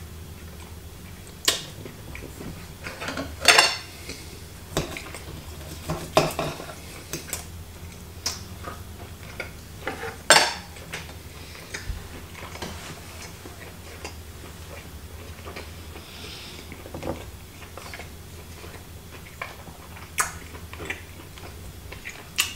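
Cutlery clinking on a dinner plate at irregular intervals during a meal, a dozen or so short sharp clinks with a low steady hum underneath.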